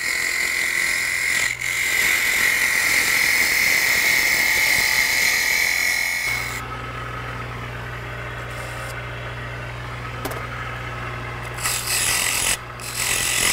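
Lathe turning a duck call while a hand-held wood chisel cuts it: a steady cutting noise with a high whine. About six seconds in the cutting stops, leaving the lathe motor's low hum, and short cuts start again near the end.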